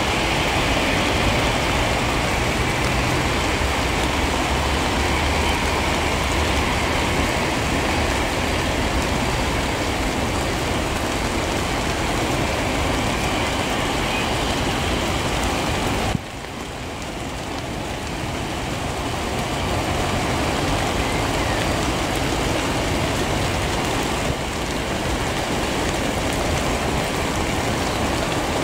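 Steady hiss of heavy rain mixed with the running of an Airbus A321neo's jet engines at low power as the airliner lines up on the wet runway. About halfway through, the sound drops suddenly and then builds back over a few seconds.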